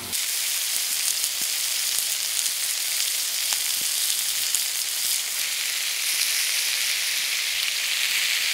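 Crocodile arm meat sizzling steadily in oil on a griddle plate as its first side sears, a dense even hiss sprinkled with small spitting pops.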